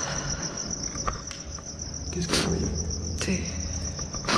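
Crickets chirping in a steady, rapid, even pulse. A brief scuff comes about halfway through and a sharp click near the end.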